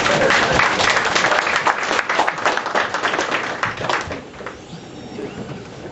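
Live audience applauding, dense clapping that dies away about four seconds in.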